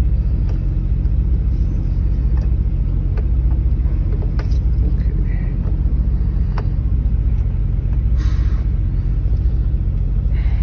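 Peterbilt truck's diesel engine idling, a steady low rumble heard inside the cab, with a few faint knocks and taps over it.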